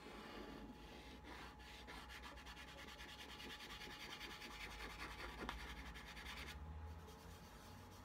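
Dry pastel stick rubbing back and forth on paper in quick, faint scratchy strokes, stopping abruptly about a second and a half before the end.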